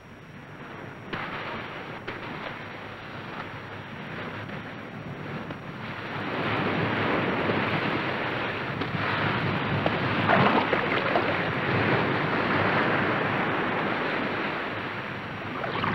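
Waves washing onto a beach: a steady rush of surf that grows louder about six seconds in.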